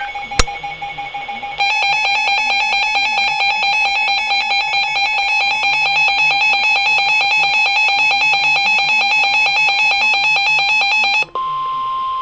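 Emergency Alert System alarm tones for a severe thunderstorm warning: a steady electronic tone, then a rapidly pulsing beeping alarm for about ten seconds, which cuts off near the end into a single steady high tone. A sharp click comes just after the start.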